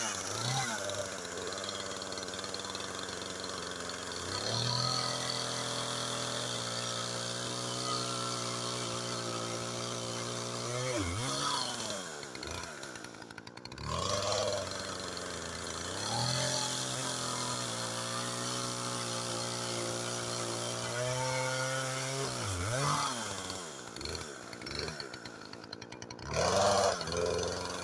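Small two-stroke gas chainsaw running while cutting wood. It holds a steady high speed for several seconds at a time, and the throttle drops back and revs up again a few times.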